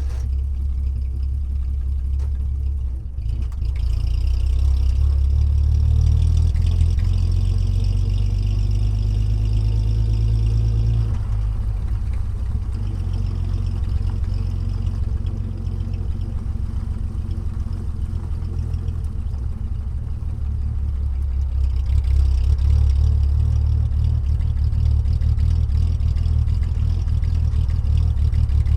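An engine running steadily with a deep, even hum; its tone and load shift slightly a few times.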